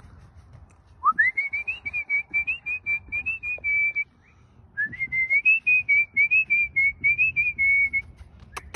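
A person whistling two long warbling phrases, the first sliding up into a wavering high note. Near the end a quick run of sharp clicks begins.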